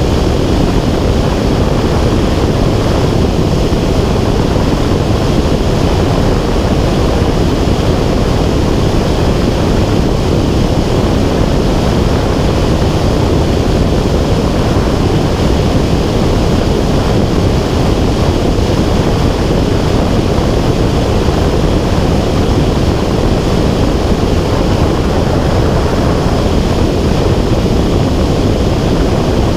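Loud, steady rushing wind buffeting a small camera's microphone in flight: a dull, low roar with no clear engine pitch, unchanging throughout.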